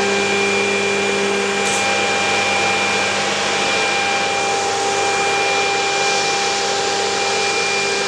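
Schirmer EF corner-rounding milling machine running idle, its spindle motors giving a steady whine of several tones over a rushing hum. A brief high click about two seconds in.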